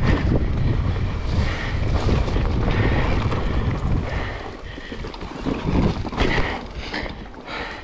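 Decathlon Stilus electric mountain bike descending a dirt forest trail at speed: wind buffets the microphone over the rumble of the tyres on dirt and leaves, with a few sharp knocks and rattles from the bike over bumps about two-thirds of the way in.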